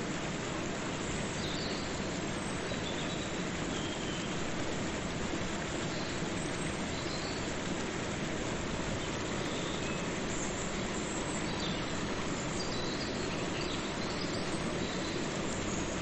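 Waterfall and river water rushing steadily, an even noise with no breaks.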